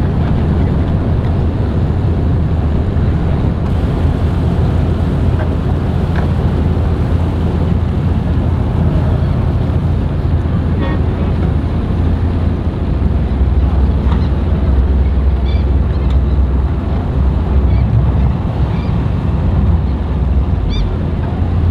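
Boat engines running steadily, with wind rumbling on the microphone.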